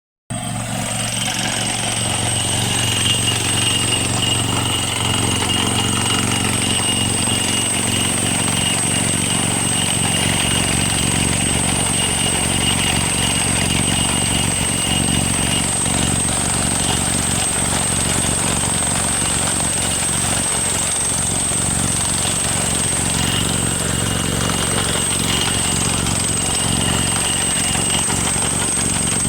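Drilling machine running steadily, a continuous mechanical drone with a thin high whine over it.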